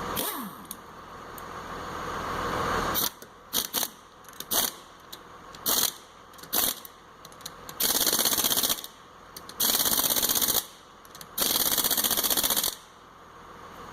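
Impact wrench fitted with an 80 ft-lb torque stick, running lug nuts onto a car wheel. Several short bursts come first, then three longer bursts of about a second each as it hammers the nuts tight.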